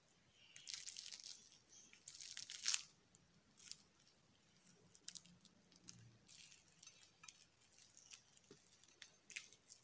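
A flaky stuffed msemen, a Moroccan layered flatbread, torn apart by hand, its crust crackling. There are two louder spells of crackling in the first three seconds, then lighter crackles as the layers are pulled open.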